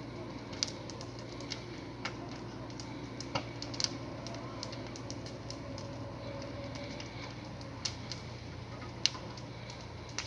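Irregular crackling and sharp pops from a fire burning in an apartment balcony, over a steady low hum.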